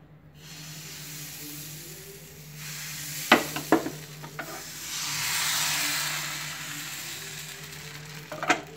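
Rice-and-coconut appam batter sizzling as it hits a hot appam pan (appachatti) and is swirled around, the hiss growing louder midway through. A few sharp metal knocks of the pan come about three seconds in and near the end.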